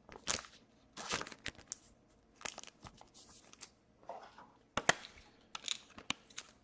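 Trading cards and plastic packaging being handled: scattered short rustles and crinkles with a few light clicks, one sharper around the middle.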